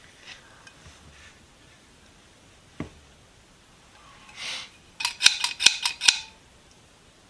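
Small metal parts being handled and clinking together: a single light click, a brief brushing sound, then a quick run of about six sharp metallic clinks with a short ring.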